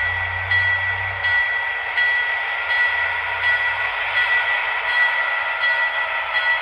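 Sound-equipped HO scale GP20 diesel model locomotives running from their onboard speakers as they pull a train, the diesel engine sound steady with a high whine held over it.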